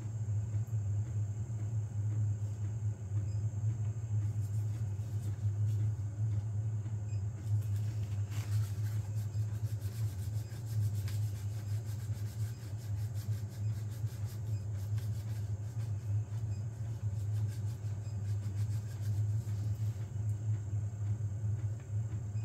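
Steady low hum of a powered-on Elegoo Neptune 4 Pro 3D printer sitting idle with its cooling fans running.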